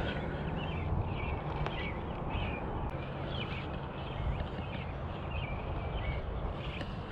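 Small birds chirping repeatedly in short calls, over a steady low rumble on the microphone.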